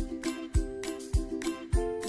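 Background music with a steady beat, a kick-drum-like hit about every 0.6 seconds under sustained melodic notes.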